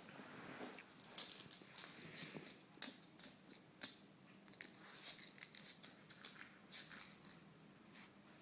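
A small jingling toy rattled in three short bursts, with a thin bell-like ring inside each burst and a few light clicks between them.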